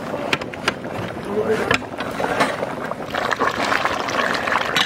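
Large pot of goat curry bubbling in an iron kadai over a wood fire, with scattered pops and crackles. From about three seconds in, a metal ladle stirs through the thick gravy and the bubbling and sloshing grow denser.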